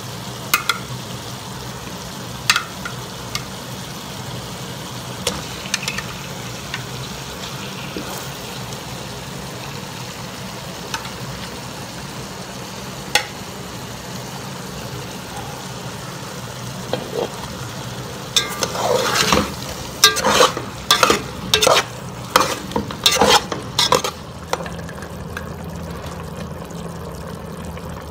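Chicken pieces and sliced onions frying in a pot with a steady sizzle, broken by occasional sharp knocks of a utensil against the pot. About two-thirds of the way through comes a run of clattering knocks and scrapes as the pieces are stirred and turned.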